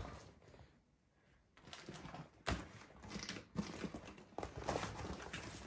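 Rustling of fabric and bags with many small clicks and knocks as a duffel bag is packed by hand and a handbag is pushed into it. It is quiet for the first second and a half, and there is a sharper knock about two and a half seconds in.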